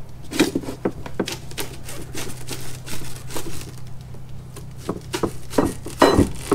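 Irregular clicks, taps and knocks of a hand scraper working against a fiberglass mold form, with a louder knock about six seconds in. A steady low hum runs underneath.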